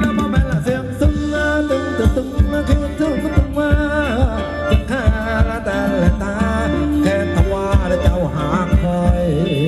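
Live band playing Thai ramwong dance music over loudspeakers: a steady drum beat under a wavering melody line.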